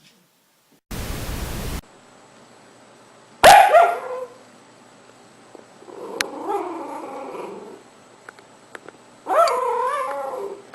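A dog vocalizing: a loud, sharp yelp, then a softer whine, then a longer wavering whimpering call. A short burst of hiss comes about a second in, before the yelp.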